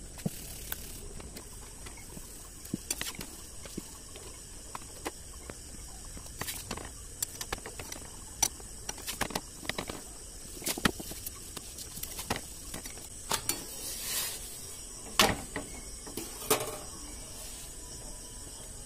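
Scattered light clicks and knocks of kitchen utensils and cookware over a steady background hiss, with a louder knock about fifteen seconds in.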